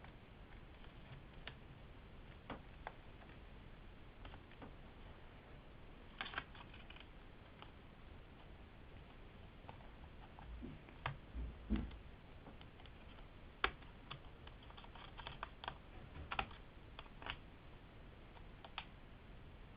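Scattered light plastic clicks and taps of a netbook keyboard being pried up and lifted out of its frame, with a few louder knocks in the middle.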